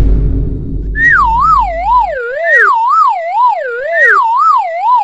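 Cartoon explosion sound effect whose low rumbling tail fades out about two seconds in, overlapped from about a second in by a police-style siren sound effect wailing up and down about twice a second.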